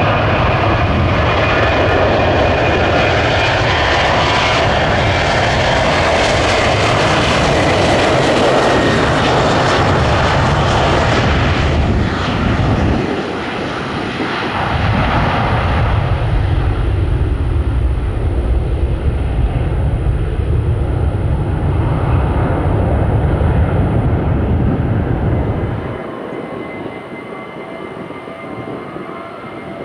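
Airliner jet engines running loud as the plane passes; the high hiss fades after about twelve seconds while a low rumble holds on, then falls off about four seconds before the end.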